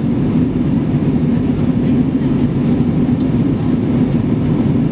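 Steady cabin drone of a British Airways Airbus A320 in flight, the engines and rushing airflow heard from inside the cabin as a deep, even roar.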